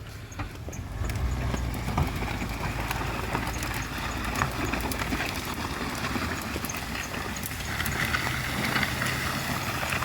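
GMC Yukon's engine running steadily as it drags a fallen tree, with branches scraping and crackling along the road.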